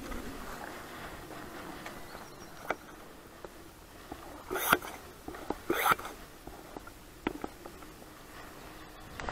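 Footsteps and scuffs on dry ground littered with twigs and stalks, irregular, with two louder scrapes about halfway through.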